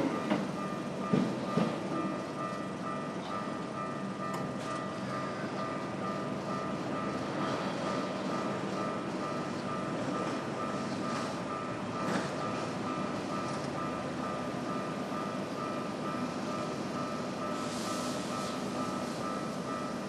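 Japanese railway level-crossing warning alarm on the Keikyu Daishi Line ringing: an electronic tone repeating rapidly and steadily. A passing train's noise fades out in the first couple of seconds.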